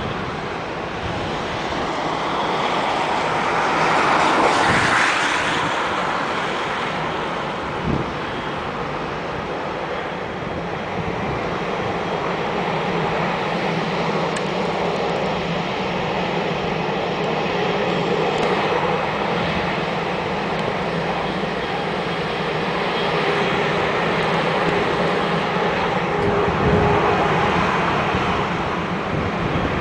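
Boeing 737-800's CFM56 jet engines running as the airliner taxis: a steady jet hum with a faint whine, swelling briefly about four seconds in.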